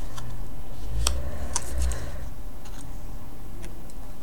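Tarot cards being handled on a cloth-covered table: light, irregular clicks and taps as cards are picked up and flipped over, with a small cluster about a second in.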